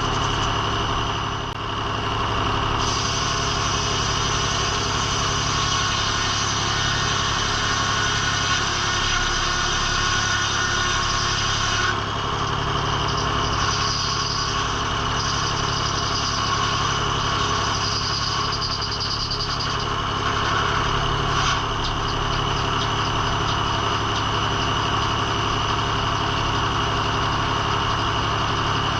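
Engine of a circle sawmill running steadily at constant speed. The higher part of the sound shifts abruptly a few times, about 3, 12 and 22 seconds in.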